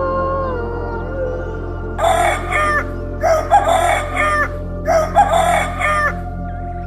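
Rooster crowing three times in a row, each crow about a second long, over a soft sustained background music pad.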